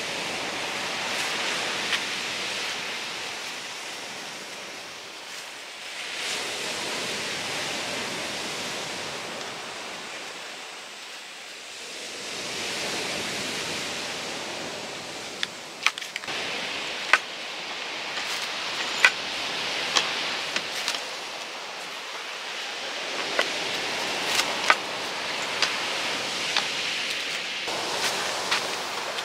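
A steady rushing noise, high and hissy, swelling and fading every several seconds. From about halfway, scattered sharp clicks and clinks of cooking gear being handled.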